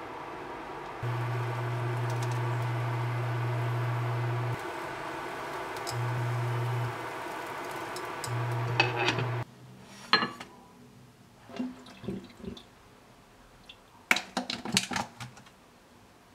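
Electric cooktop humming under a frying pan as a crepe cooks, its low drone cutting in and out several times. About nine seconds in the sound drops away to light knocks, clicks and rustles of arugula leaves being handled in a plastic container.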